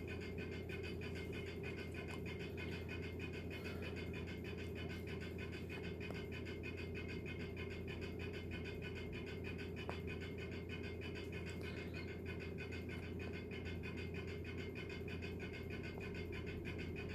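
Steady low hum with an even hiss, unchanging, typical of room noise from a running appliance or fan, with a single faint click about ten seconds in.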